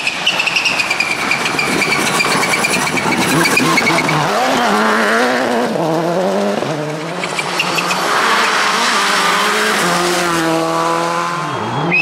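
Turbocharged 2.0-litre four-cylinder World Rally Car engines at full throttle on rally stages, revving up and dropping back through quick gear changes. Sharp exhaust pops come in the first few seconds.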